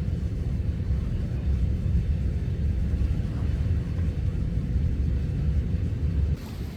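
Steady low rumble that cuts off suddenly near the end.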